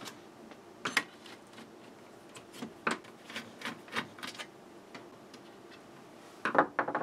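Hand screwdriver turning small screws out of the plastic end cap of a T5 fluorescent fixture: scattered light clicks and ticks, with a quick cluster of clicks near the end.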